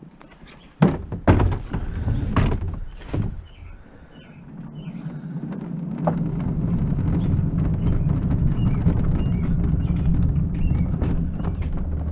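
A few loud clunks, like car doors shutting, then a car engine running steadily, building up over a couple of seconds about four seconds in.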